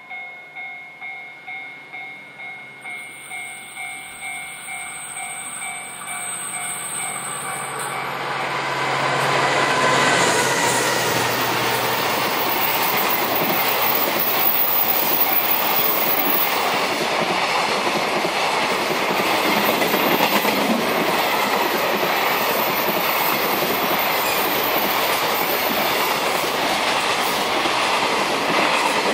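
A freight train hauled by a DF200 diesel locomotive passing: the locomotive's engine tone grows as it approaches and drops in pitch as it goes by about ten seconds in, then the long rake of container flat wagons clatters and rumbles over the rails. For the first several seconds a ringing tone repeats about twice a second.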